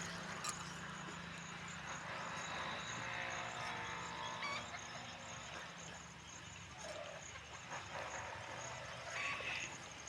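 Quiet outdoor background: a faint, steady high-pitched trill with a few faint distant sounds.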